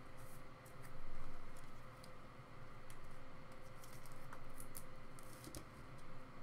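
Soft handling noises from a trading card and a clear rigid plastic top-loader: faint scattered ticks, scrapes and rustles as the card is slid into the holder.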